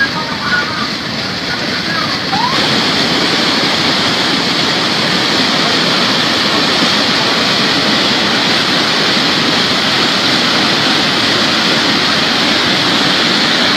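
Muddy flash-flood torrent churning down a stony riverbed: a steady, loud rushing of water that grows louder about two and a half seconds in.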